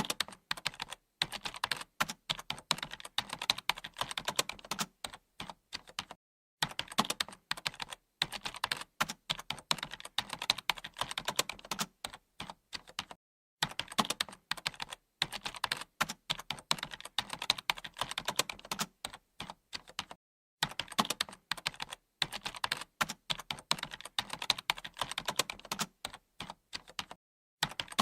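Fast typing on a computer keyboard: dense, irregular key clicks in runs of several seconds, broken by brief pauses about every six to seven seconds.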